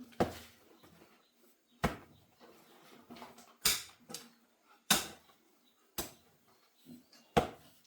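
A hand tool striking repeatedly in a steady work rhythm: about six sharp blows, a little over a second apart, some followed by a short scrape.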